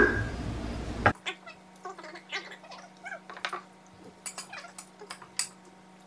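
Forks and cutlery clinking against plates during a meal, in scattered short clicks, with a few faint short high-pitched cries bending in pitch between them and a steady low hum underneath.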